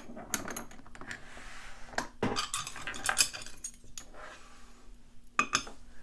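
Scattered light metallic clinks and clicks of lock-picking tools and a metal lock cylinder being handled, with a sharper click about five seconds in.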